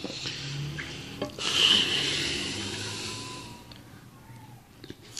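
Chopped leafy greens tossed by hand in a steel bowl: a loud rustling that starts about a second and a half in and fades away over about two seconds.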